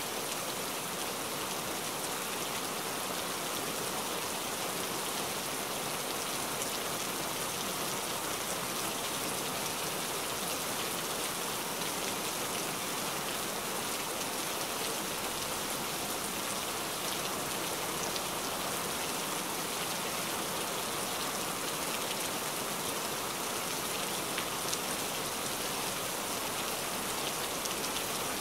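Heavy rain falling steadily, a dense hiss of countless drops splashing.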